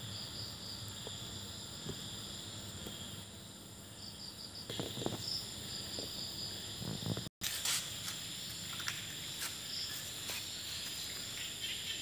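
Crickets and other insects chirping in steady high trills, some in pulsing chirps, with low handling thumps and rustles from the moving phone. The sound cuts out for an instant about seven seconds in.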